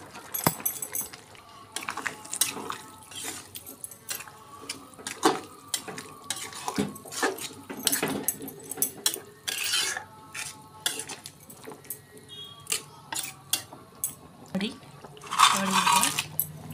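Metal spatula scraping and knocking against a metal kadai as a wet curry of moringa leaves, potato and lentil badi is stirred, in irregular clinks and scrapes.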